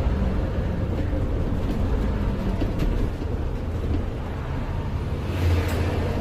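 Alexander Dennis Enviro400 MMC double-decker bus running, heard from inside as a passenger: a steady low engine and road rumble with faint tones above it. A short hiss rises about five and a half seconds in.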